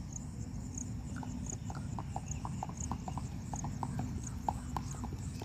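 Sindhi horse's hooves clip-clopping in a quick, even beat, about three to four strikes a second, starting about a second in.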